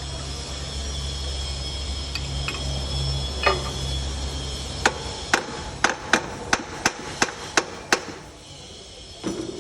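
A hammer tapping on metal: about nine sharp strikes, roughly three a second, beginning about five seconds in. Before the strikes, a steady low hum runs and stops.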